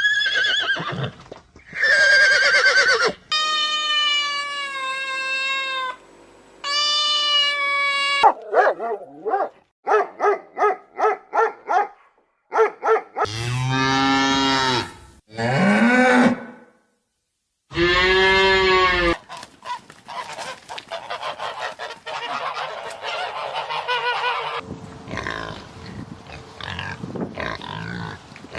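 A string of different animal calls, one after another with short gaps. Some are long, drawn-out calls; about nine seconds in comes a run of short, quick calls, followed by a few deep calls.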